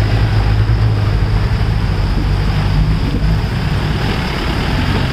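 Jeep engines running at low revs as the jeeps crawl through a shallow rocky stream, a steady low rumble with water rushing and splashing around the wheels.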